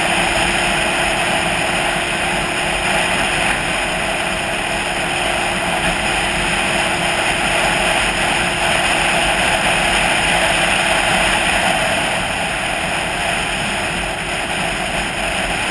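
Steady rush of wind and road noise from a vehicle travelling at road speed, with its engine running underneath.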